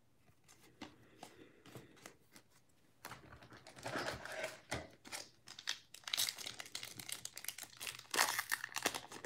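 Wrapper of a Panini Contenders basketball card pack crinkling as it is handled and torn open. It starts about three seconds in, after a few faint taps of cards being handled, and gets louder near the end.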